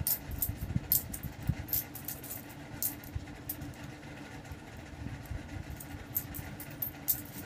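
One-peso coins clinking together as fingers pick through a pile and sort them into groups of ten on a bedsheet: a quick, irregular run of small clicks. A steady low hum runs under them.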